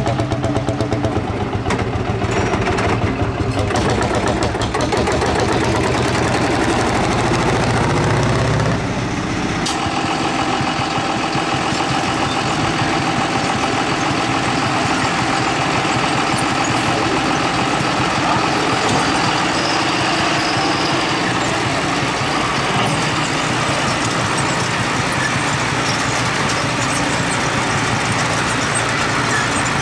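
Lanz Bulldog's single-cylinder hot-bulb engine pulling a sled under load, with a deep, even pulse. About ten seconds in the sound changes abruptly to a Fordson tractor's engine running steadily.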